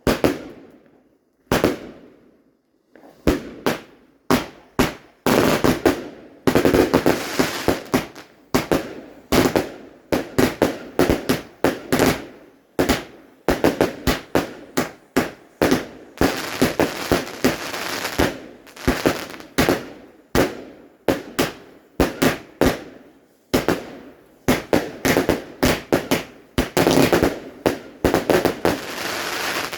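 Fireworks going off in a long, irregular run of sharp bangs, each with a short ringing tail. The bangs are spaced out at first, then come several a second from about six seconds in, and they stop abruptly at the end.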